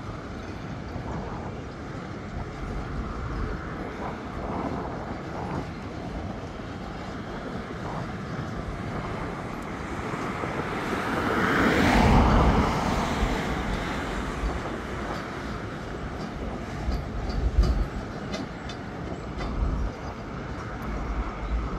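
Empty freight wagons rolling past on the rails: a steady rumble of wheels with clicking over the rail joints. It swells to its loudest about halfway through, and a few sharp knocks come near the end.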